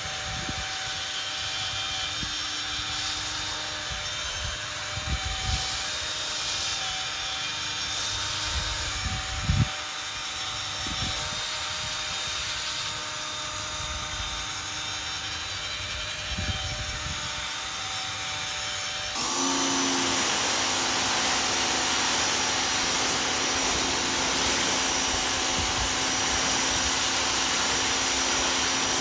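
Cordless drill spinning a brush attachment over a soapy carpet floor mat, a steady motor whine with scrubbing and a few knocks. About two-thirds of the way through it gives way to the louder, steady hiss of a Greenworks pressure washer spraying the mat.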